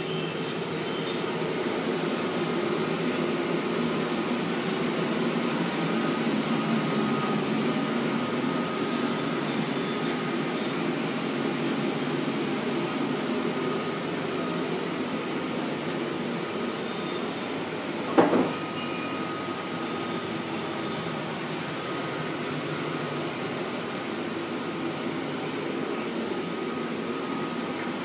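Laser cutting machine running: a steady whir with a faint steady whine over it, and one sharp click about two-thirds of the way through.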